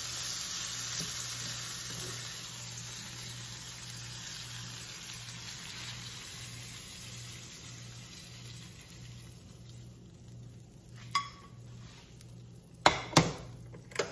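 Sausage, peppers and onions sizzling in a hot nonstick frying pan, the sizzle fading over the first several seconds as they are scraped out onto the eggs in a second pan. Near the end come a few sharp knocks of the spatula and pans against each other and the glass cooktop.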